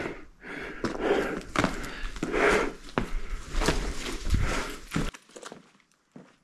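Footsteps on loose ground, about two steps a second, with the walker's breathing and a low rumble of handling on the microphone; it all stops abruptly a little after five seconds in.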